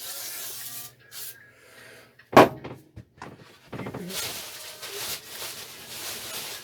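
Rubbing and wiping with a rag over a lawn mower deck, in bouts of scraping noise, with one sharp loud knock about two and a half seconds in.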